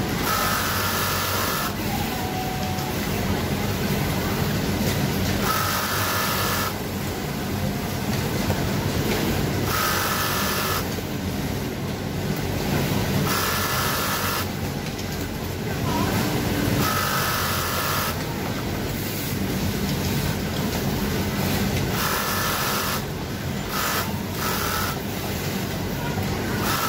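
Brother twin-needle industrial lockstitch sewing machine stitching in short runs of about a second each, with a thin motor whine during each run and pauses between, over a steady hum of other factory machines.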